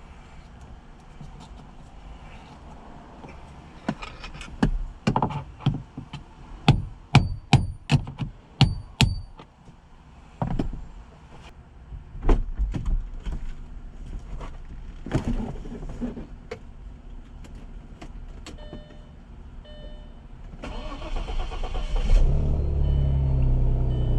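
A run of sharp knocks and clicks, then a few short beeps, then the 2003 Audi Allroad's engine cranks for about a second and starts right up, running steadily near the end: the newly replaced fuel pump has cured its no-start.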